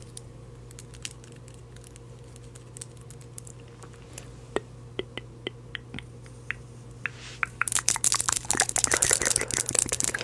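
Sparse small clicks over a steady low electrical hum, then from about seven and a half seconds in a loud, dense crinkling and crunching, as of a snack packet being handled and opened.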